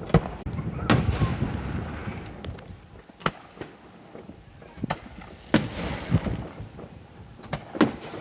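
Fireworks going off: a run of about eight sharp bangs at uneven intervals, each followed by a rumbling echo, the loudest about a second in and again around five and a half seconds in.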